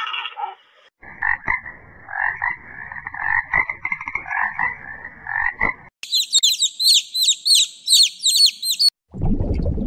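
Animal calls: a run of repeated calls lasts about five seconds, then about three seconds of rapid high-pitched chirps. A low rushing noise starts near the end.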